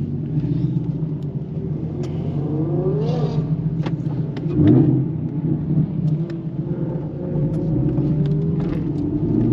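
Chevrolet Camaro ZL1 1LE's supercharged V8 running steadily under way. The revs rise briefly about three seconds in and again just before five seconds in.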